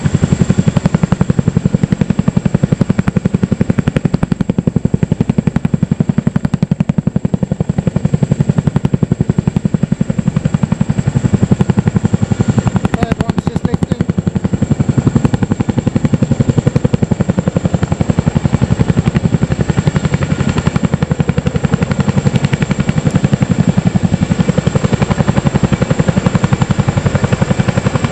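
RAF Boeing Chinook tandem-rotor helicopters hovering and lifting off, their rotors making a fast, steady blade thudding, with a steady high-pitched whine over it.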